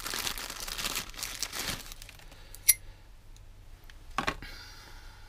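Clear plastic bag crinkling and rustling as a new tapered roller bearing is unwrapped from it, densest in the first two seconds, with one sharp click about two and a half seconds in and a shorter rustle near the end.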